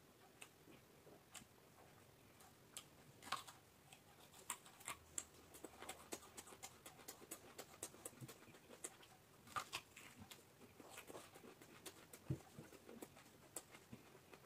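Close-up chewing and crunching of raw vegetables: a run of quick, crisp clicks and mouth smacks at an irregular pace.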